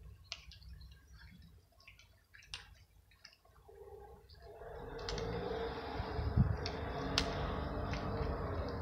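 A cat crunching dry kibble off stone tiles, heard as faint scattered clicks. About halfway through, a steady rumbling noise with a low hum rises and holds, louder than the chewing.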